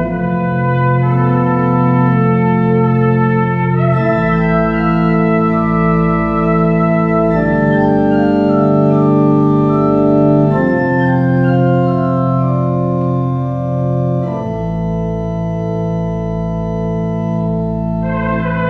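Organ playing slow, sustained chords, the harmony shifting every three to four seconds.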